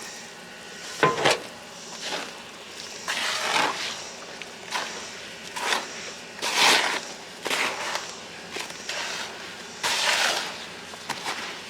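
Mortar mix being stirred by gloved hands in a bowl: irregular gritty crunching and scraping bursts.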